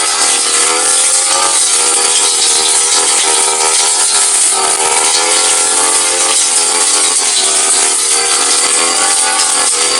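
Brush cutter engine running at high speed while its spinning metal blade cuts grass. Its pitch wavers up and down as the load changes.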